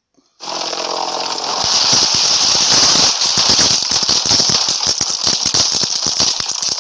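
Soundtrack of a spider video playing on a phone: a loud, steady hiss that starts about half a second in, joined from about a second and a half in by a dense rattle of rapid clicks.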